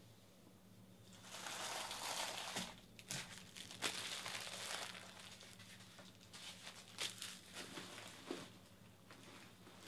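Trading-card pack wrappers crinkling as they are handled and crumpled, loudest for a few seconds starting about a second in, followed by a few sharp clicks and taps of cards on the table. A low steady hum runs underneath.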